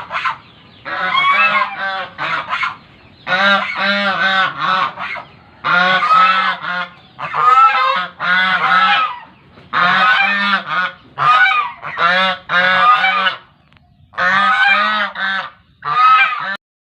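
Large birds honking loudly in repeated bursts, each a quick run of goose-like honks lasting about a second, with short pauses between.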